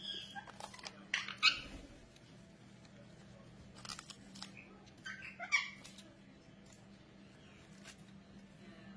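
Indian ringneck parakeet biting and tearing at fresh leafy greens with its beak: a few short, crisp rips and squeaky crunches, loudest about one and a half and five and a half seconds in.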